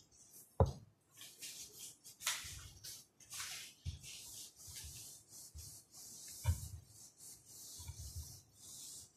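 Handheld whiteboard eraser wiped back and forth across a whiteboard: a quick run of rubbing strokes, with a few soft knocks, the sharpest about half a second in.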